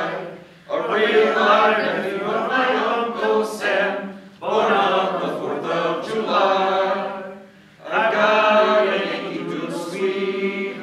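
A group of voices singing together without accompaniment, in phrases of about three to four seconds with short pauses for breath between them.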